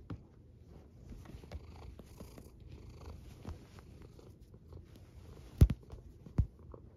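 Domestic cat purring close to the microphone, a steady low rumble, with two loud thumps near the end.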